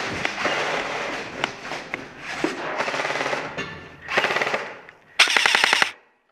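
Airsoft electric rifle firing rapid full-auto bursts: a short burst about four seconds in and a louder one just after five seconds, which cuts off suddenly. Before that, a dense clatter with scattered sharp clicks.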